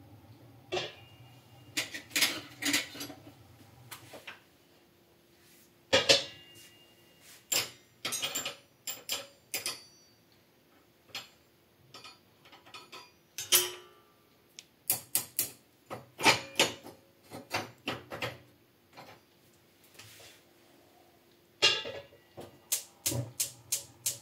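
Irregular sharp clicks, knocks and light clatter of hard objects being handled, some strikes followed by a brief ringing tone, in clusters with short quiet gaps between.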